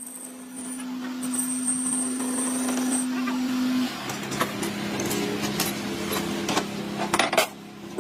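A machine motor running with a steady hum that shifts to a slightly lower pitch about halfway through, with several sharp metallic knocks in the second half.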